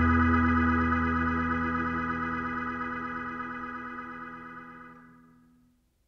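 Background music ending on one long held chord that fades out steadily and is gone shortly before the end.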